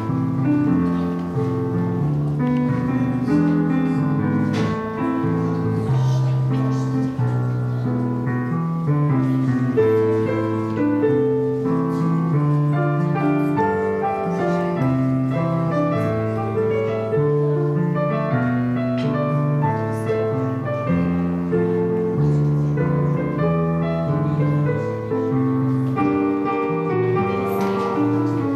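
Background music on keyboard, slow sustained chords changing every second or so.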